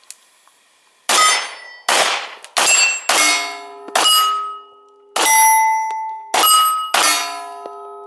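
Semi-automatic pistol fired eight times, about a second apart, with light target handloads, each shot followed by the ring of a struck steel plate target. The rings hang on and overlap, and the last one fades out slowly.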